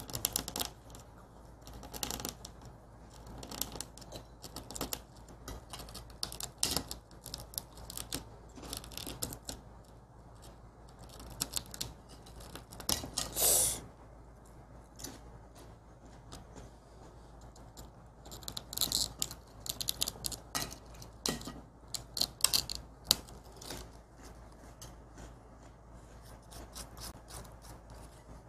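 Dalgona (honeycomb sugar candy) being scraped and picked at with a thin pointed tool to cut out a heart shape: an irregular string of small scratches and clicks. A louder, longer burst comes about 13 seconds in.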